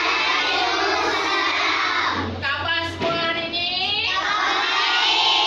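A class of young schoolchildren singing together in unison, many voices at once.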